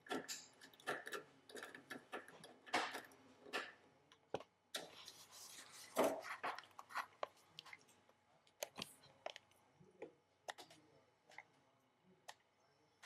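Irregular small clicks and scrapes of wires being fitted and fastened into a generator controller's terminal block, many in quick succession at first and sparser in the second half.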